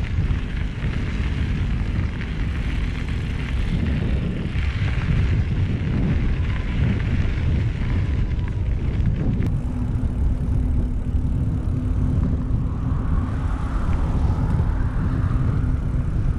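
Wind buffeting the camera microphone while riding a mountain bike, a loud, steady rumble. About halfway through, a steady low hum joins it.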